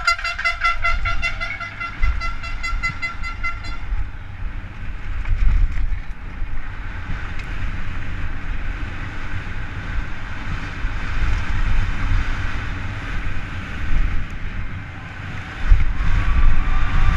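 Wind rushing over a helmet camera at speed, with a downhill mountain bike's tyres and frame rattling and jolting on a dry, rough dirt track. For the first few seconds a horn toots in rapid repeated blasts, and crowd cheering rises near the end.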